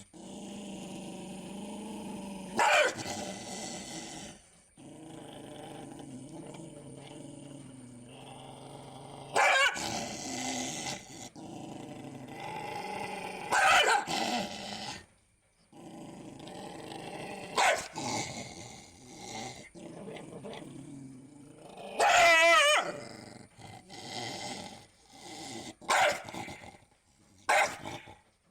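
Angry dog growling in long, continuous stretches, broken every few seconds by a sharp, loud bark. There are about seven barks, and one about two-thirds through is longer and wavering, like a snarl.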